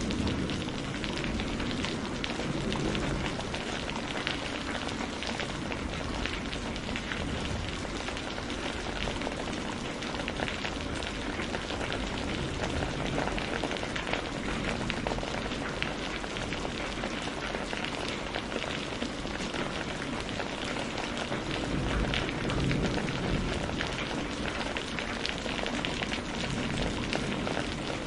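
Steady rain falling, an even hiss with a dense patter of drop ticks. A low rumble of thunder swells briefly about three-quarters of the way through.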